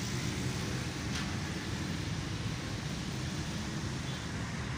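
Steady outdoor background rumble of distant road traffic, low and even, with no distinct events.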